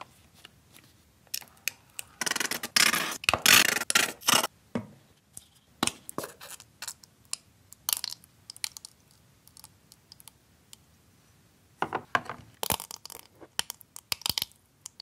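Plastic ketchup squeeze bottle squeezed upside down, the ketchup squirting and sputtering out in irregular noisy bursts, with small clicks and splats in between. A longer loud stretch comes a couple of seconds in and another near the end.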